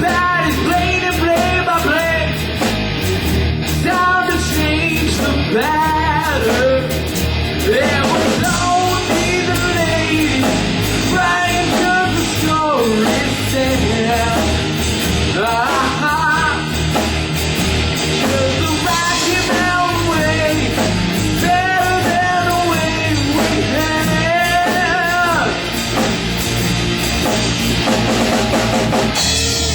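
Rock band playing: electric guitar lines bending in pitch over drums and bass.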